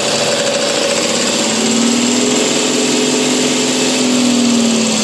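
The diesel engine of a Mahindra Blazo BS6 truck runs, then is revved about a second and a half in, rising in pitch, holding, and dropping back near the end. The number-two injector has just been plugged back in; that injector is faulty and makes the engine knock and give black smoke.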